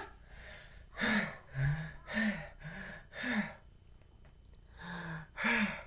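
A man's voice making breathy huffing and puffing sounds, as if panting from running: five short huffs about half a second apart, then two more near the end.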